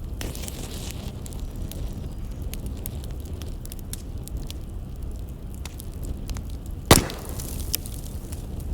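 Firewood burning with irregular small crackles over a low steady rumble, and one sharp, loud pop about seven seconds in followed by a brief hiss.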